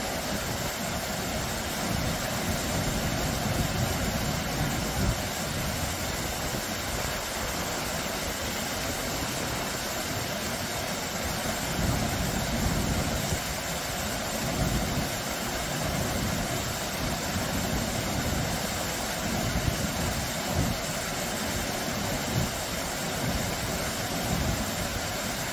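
Small, low waterfall: water spilling over rocks into a shallow stream, a steady rushing splash with an uneven low rumble underneath.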